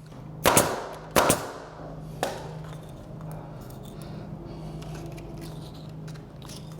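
Two loud, sharp knocks about three-quarters of a second apart, then a lighter one, from work on wooden baseboard trim being fastened in place. A steady low hum runs underneath.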